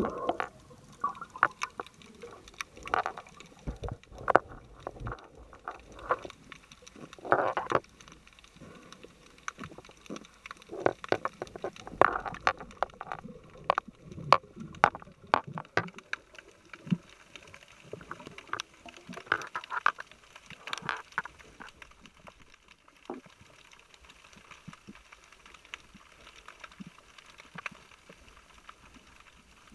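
Underwater sound: many scattered, irregular clicks and knocks, with short bubbly gurgles every few seconds.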